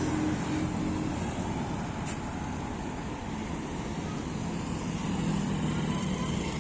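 Steady road traffic noise, with a low engine hum from a passing vehicle growing slightly louder in the last couple of seconds.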